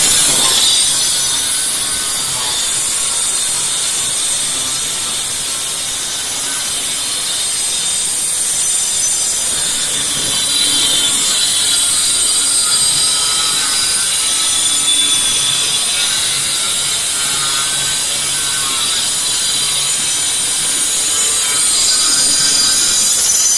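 Handheld electric angle grinder with a cutting disc running continuously as it cuts along a flat white board: a steady high-pitched motor whine over the grinding noise of the disc in the material.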